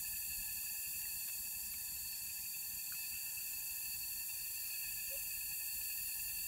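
Steady chorus of insects: a constant high hiss with several unchanging droning tones layered in it, and a few faint small clicks.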